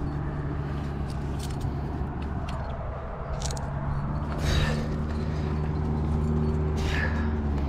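A steady low rumble of distant motor traffic, with a few light clicks and two brief louder rasps about four and a half and seven seconds in.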